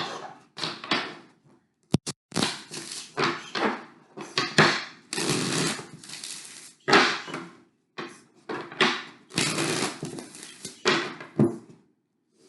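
A tarot deck being shuffled by hand: a run of papery card-shuffling bursts with short pauses between them and a sharp click about two seconds in, in a room with some echo.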